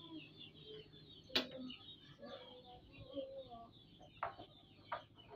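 Birds chirping continuously in the background. About a second and a half in a sharp click sounds, with two fainter ones near the end: a metal spoon knocking against the metal pot.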